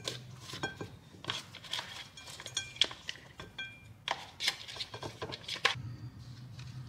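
Wooden chopsticks clicking and scraping against a paper takeaway bowl and a plate as noodles and lettuce are lifted across: an irregular string of light clicks, some with a brief ring, thinning out near the end.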